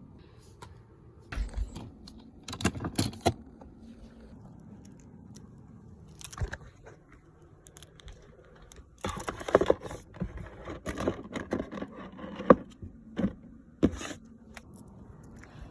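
Fidget toys being handled and sorted, giving irregular clicks, clatters and scrapes. The clattering is busiest from about nine to eleven seconds in, with single sharp knocks after that.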